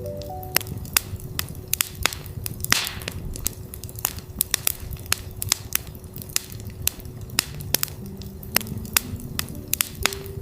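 Campfire crackling with frequent sharp pops over a low rumble of burning wood, with a steady 369 Hz tone held underneath. Near the end, soft synth notes step upward in pitch.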